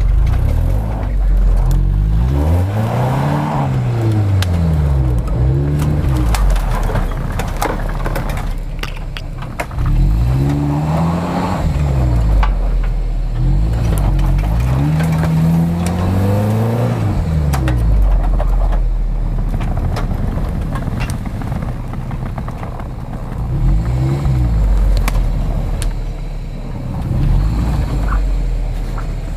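Off-road SUV engine revving up and falling back over and over as it labours up a steep snowy slope, struggling for grip.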